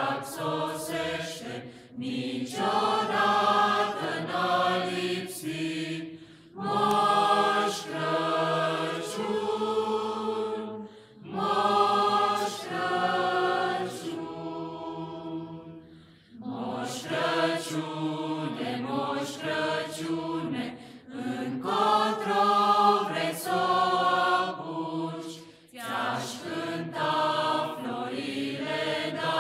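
Mixed group of men's and women's voices singing a Romanian colind (Christmas carol) a cappella, in sung phrases of a few seconds each with brief breaks between them and a longer pause about halfway through.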